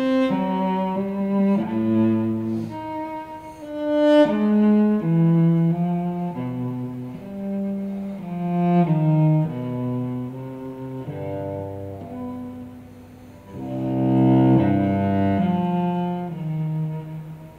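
Solo cello played with the bow: a slow line of separate sustained notes. About fourteen seconds in comes a louder passage with several strings sounding together as chords.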